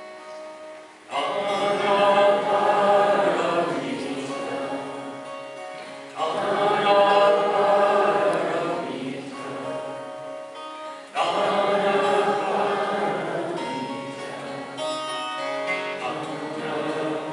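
Singing with acoustic guitar accompaniment: three long sung phrases, each starting loud about five seconds apart and slowly fading.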